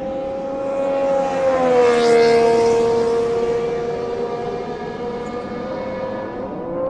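Honda 1.6-litre V6 turbo hybrid Formula 1 engine in the McLaren MP4-29H test car passing at speed: a steady high engine note that swells to its loudest about two seconds in and drops in pitch as the car goes by.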